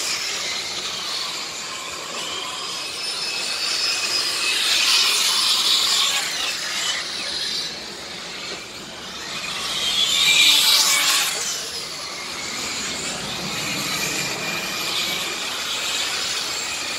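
Motors of radio-controlled model race trucks and cars lapping a track: a steady high-pitched whine that rises and falls as they accelerate and brake. One passes close about ten seconds in, loudest there, its pitch sweeping up and then down.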